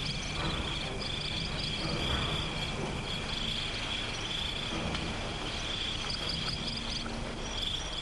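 Crickets chirping in a steady chorus, with rapid trills coming and going over it.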